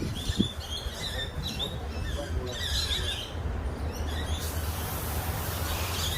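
Birds chirping in short repeated calls over a steady low rumble, with a hiss setting in about four and a half seconds in.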